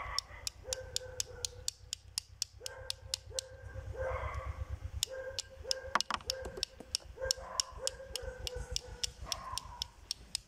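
A dog whining in short high cries, repeated over and over. Alongside runs a fast, even ticking of about five ticks a second.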